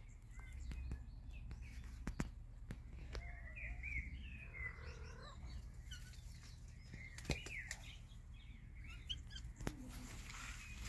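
Small birds chirping and twittering, short rising and falling calls that come in two clusters, over a low steady rumble. A few sharp clicks stand out, loudest at about two seconds in and again near seven seconds.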